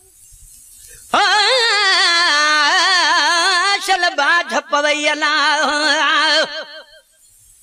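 A man's voice singing a Sindhi naat, drawing out long ornamented notes with a wide, wavering vibrato, with no instruments. The voice comes in about a second in, breaks briefly around the middle, and fades out about a second before the end.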